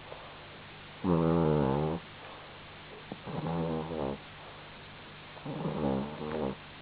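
A sleeping pet snoring: three drawn-out, pitched snores about two and a half seconds apart, the first the loudest.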